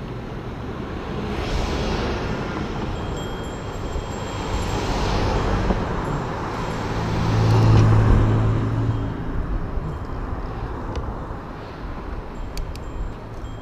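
Road traffic: cars passing one after another on the road alongside, each swelling and fading. The loudest pass, with a low engine hum, comes about eight seconds in. A few faint clicks follow near the end.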